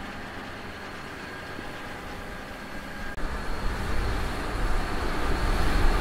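John Deere X9 1100 combine harvester running while cutting wheat: a steady machinery hum with a few held whining tones. About three seconds in it turns louder, with a heavy, uneven low rumble.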